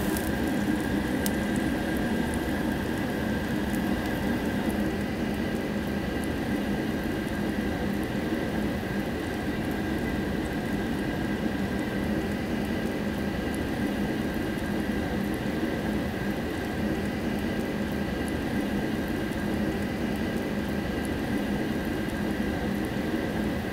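Steady hiss of food cooking at a Korean barbecue table, with a steady hum under it and a few faint crackles near the start.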